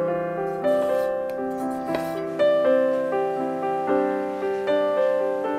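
Background piano music, a gentle steady run of notes over held chords.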